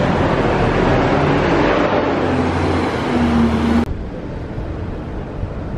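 Street traffic: motorbikes and cars passing with engines running, until an abrupt cut a little under four seconds in leaves a much quieter outdoor background.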